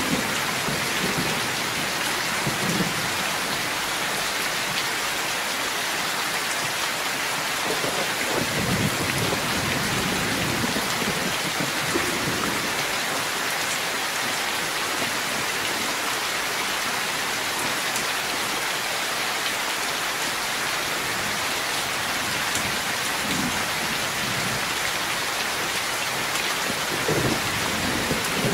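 Heavy rain pouring steadily and splashing on wet ground, with low rumbles of thunder now and then, most clearly about a third of the way in and near the end.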